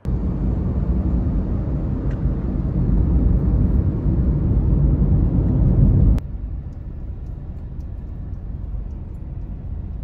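Car driving on a highway: a loud, steady low rumble of road and engine noise that cuts off abruptly about six seconds in, giving way to a quieter steady background hum.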